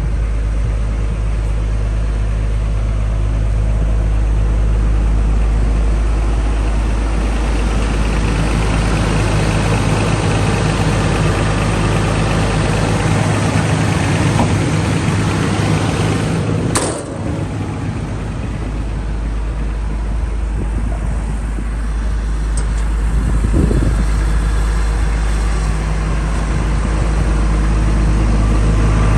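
Komatsu PC210-10M0 excavator's diesel engine running steadily, like an idle. Just past the middle the low hum briefly drops and there is a sharp click, with a shorter knock a few seconds later.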